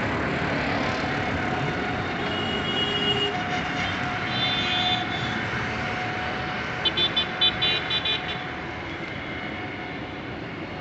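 Steady road traffic noise with vehicle horns: a couple of held horn notes early on, then a quick run of short toots about seven seconds in.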